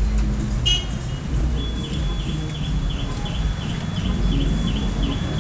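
Outdoor street ambience: a low rumble of traffic, with a short high chirp under a second in, then from about a second and a half in a high, even chirping repeated about three times a second.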